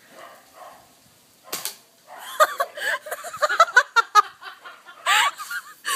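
A BB gun fires once with a sharp pop about a second and a half in. Then people break into giggling laughter in short, quick bursts.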